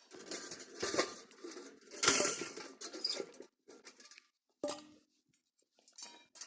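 Rustling and scraping of objects being handled in irregular bursts, loudest about two seconds in, then a sharp clink with a short ring a little before five seconds.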